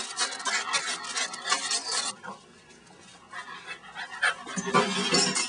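A Cavalier King Charles Spaniel panting in quick breaths close to the microphone, with a short pause about two seconds in before the panting starts again.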